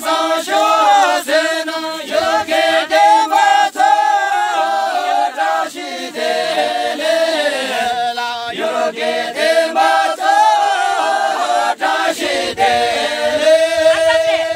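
A group of jhankri shamans singing a song together, unaccompanied, in a chant-like style, with no pause.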